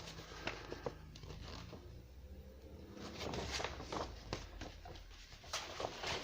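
Rustling and light clicks of paper and packaging being handled, in two spells with a quieter gap about two seconds in.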